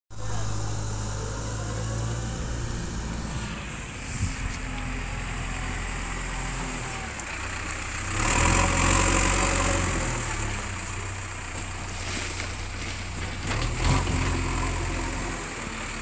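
JCB 3DX backhoe loader's diesel engine running with a steady low hum, louder for a couple of seconds about halfway through, with two short knocks.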